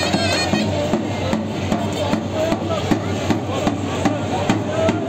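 Davul, the large Turkish bass drum, beaten in a steady rhythm of about three strokes a second, with a shrill reed wind instrument playing a wavering melody over it, strongest at the start, and a crowd in the background.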